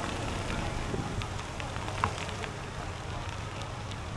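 Bicycle rolling along a trail: a steady rush of tyre noise with many small crackling ticks and a low wind rumble on the microphone, and one sharper tick about two seconds in.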